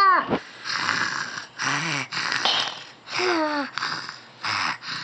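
A little girl making pretend snores on purpose, in imitation of an adult's snoring: about six short, breathy snorting breaths in a row, some with a little voice in them.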